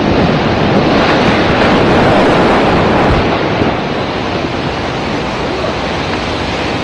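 Loud, steady rumble of two concrete cooling towers collapsing in a controlled explosive demolition. It eases slightly about three and a half seconds in and carries on.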